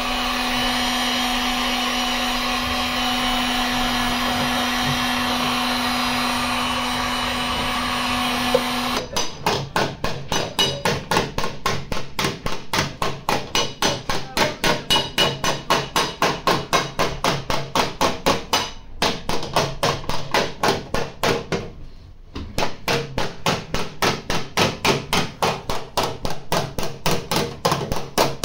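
A hand-held electric heat gun runs with a steady blowing hum and one steady low tone. About nine seconds in it stops, and a small hammer taps on the car's steel quarter panel in a quick, even rhythm, about two or three taps a second, with two short breaks. The taps are part of paintless dent repair: the heated metal is worked back into shape without repainting.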